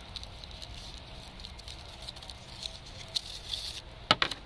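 Crumpled aluminium foil crinkling and crackling as it is wound in a spiral around a marker, with a couple of sharp clicks near the end.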